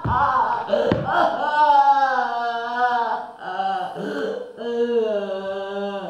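A voice chanting or singing long held notes that waver slightly in pitch, in three phrases with brief breaks between them.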